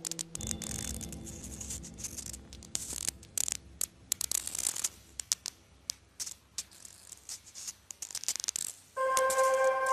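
Irregular crackling and scratching noises, many sharp clicks over a low rumble. About nine seconds in, ambient electronic music of steady held tones comes in.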